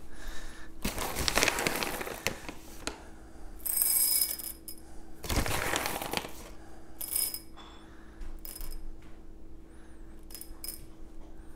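Roasted coffee beans poured into a small glass cup in several short rattling pours, then a few beans dropped in by hand near the end to top up the dose.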